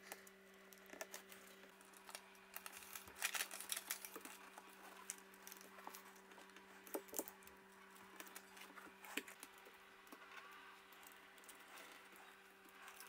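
Faint handling noises: light taps, clicks and paper rustle as a paper template is smoothed and adjusted on a dishwasher door, over a faint steady hum.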